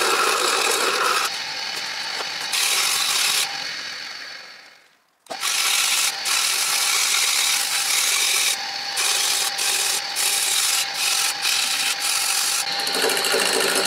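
Wood lathe running with a turning chisel cutting the spinning wood. The noise fades out about five seconds in and returns abruptly, now sandpaper rubbing against the spinning workpiece over the steady hum of the lathe.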